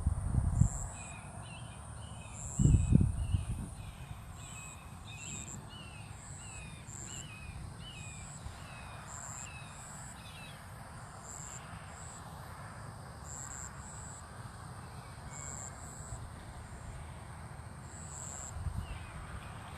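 A bird calls a rapid series of short, down-slurred notes for the first half, while a high insect chirp repeats about once a second. Two low rumbles, one at the very start and one about three seconds in, are the loudest sounds.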